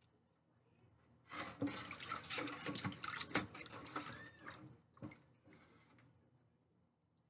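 Water splashing and sloshing in a kitchen sink as a whole raw chicken is washed by hand, with small knocks and drips, for about four seconds starting a second in.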